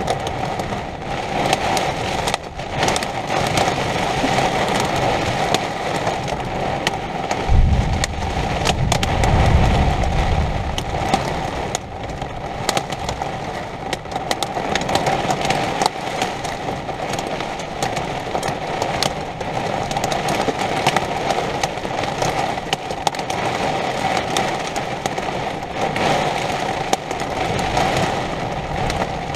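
Thunderstorm: steady rain with many sharp ticks, and a low rumble of thunder about eight seconds in that lasts a few seconds.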